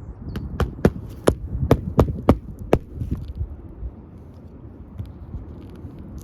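A quick run of about eight sharp knocks or clicks, roughly three a second, in the first three seconds, over a steady low rumble.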